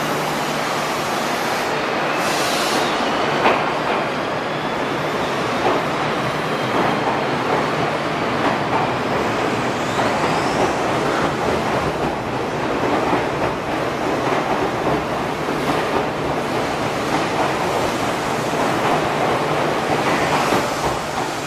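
Odakyu Romancecar electric express train running along an underground platform: a steady rolling noise of wheels on rail, with occasional clicks and a couple of brief wheel squeals.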